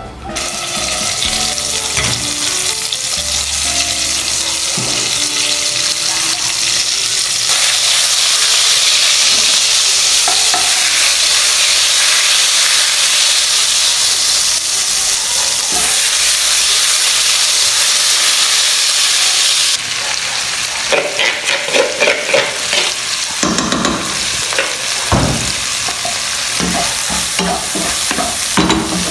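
Hot oil sizzling in a nonstick wok on a gas burner as Khmer kroeung paste fries. The sizzle steps up about a quarter of the way in and drops back about two-thirds in, when a spatula starts scraping and stirring through the pan in short strokes.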